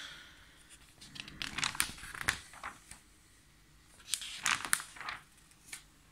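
Pages of a glossy magazine being turned by hand: paper rustling and crinkling in two bursts, about a second in and again about four seconds in, with a short click just before the end.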